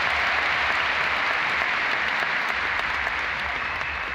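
Large arena crowd applauding, a steady wash of clapping that holds and then begins to fade near the end.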